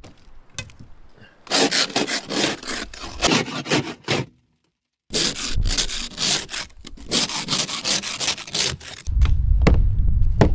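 Snow brush and plastic ice scraper working a car windshield, scraping and brushing snow and frost off the glass in quick repeated rasping strokes. The sound drops out briefly midway, and a low rumble comes in near the end.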